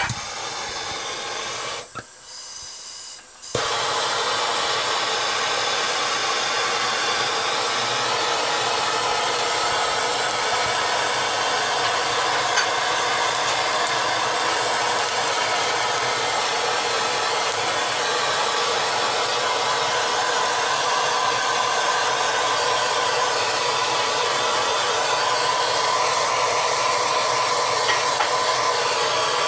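Bernzomatic TS8000 hand torch lighting about three and a half seconds in, then burning with a steady, loud rushing noise as its flame sears a steak.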